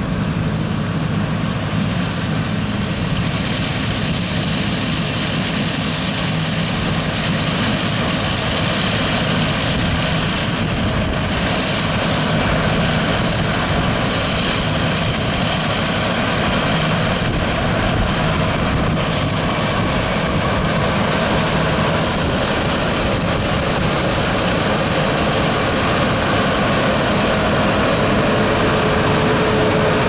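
New Holland TX65 Plus combine harvester running steadily under load while picking up and threshing ryegrass swaths: a constant diesel engine drone mixed with the steady hiss and whir of the threshing and cleaning machinery.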